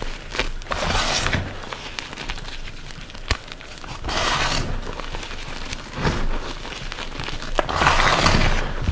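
Soft reformed gym chalk powder crunching and swishing as a hand digs, scoops and squeezes it in a bowl. The loudest surges come about a second in, around four seconds and near the end, with a few small sharp ticks between.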